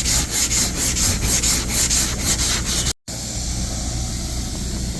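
Hand block-sanding of cured body filler on a car body panel: sandpaper on a sanding block rasping back and forth in even strokes, about four a second. About three seconds in the sound breaks off for an instant and goes on as a steadier scraping hiss.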